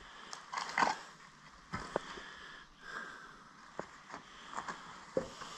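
Footsteps over loose old boards and rotted wood debris: scattered crunches, cracks and knocks of wood underfoot.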